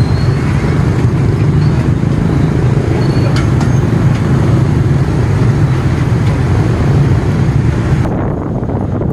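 Traffic din from a crowd of motorbikes and scooters, many small engines running together in a steady low hum. About 8 s in it gives way to wind on the microphone.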